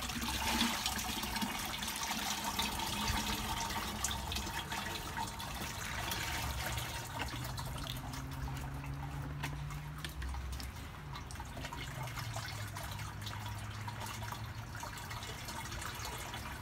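Muddy clay slurry poured from a small plastic bucket through window-screen mesh into a plastic 5-gallon bucket: a steady liquid pour. Near the end, hands squish the mud through the screen.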